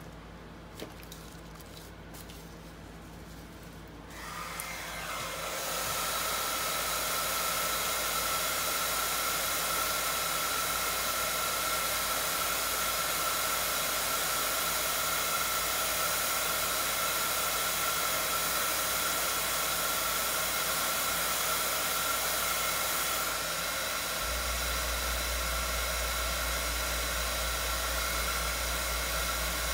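Small craft heat gun switched on about four seconds in and running steadily over wet epoxy resin: a hiss of blown air with a thin high whine. A few light clicks come before it starts, and its sound turns slightly deeper a little after twenty seconds.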